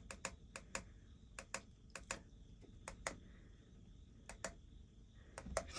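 Push buttons under the Sany SY35U mini excavator's cab display monitor clicking as they are pressed: about a dozen quiet, sharp clicks at uneven spacing.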